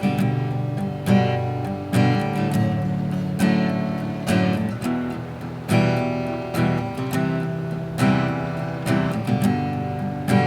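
Acoustic guitar strumming sustained chords, with a strong strum about once a second, as an instrumental lead-in to a worship song.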